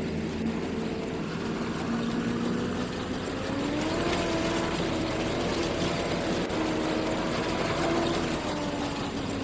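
Combine harvester engine running steadily; its pitch rises about three and a half seconds in, holds, and drops back near the end.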